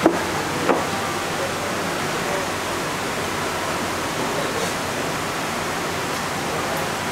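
Steady hiss of room noise, with two short clicks near the start, about half a second apart.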